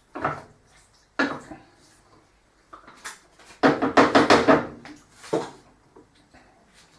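Kitchen clatter of a utensil knocking and scraping against cookware as chilli is reheated. There are a few separate knocks, then a short burst of rapid clattering past the middle.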